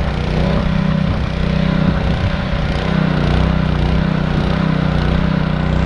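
Small petrol engine of a water pump running steadily, pushing water from a tank through a long hose to flood an ice-skating pond.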